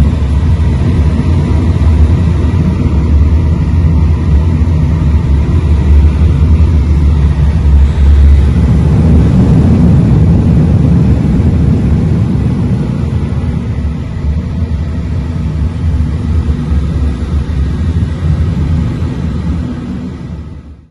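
Steady rush of airflow with a heavy low wind rumble, as heard in a glider in flight; it fades out near the end.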